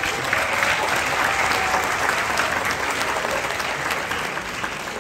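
Audience applauding, a dense, steady clatter of many hands clapping that begins to taper off near the end.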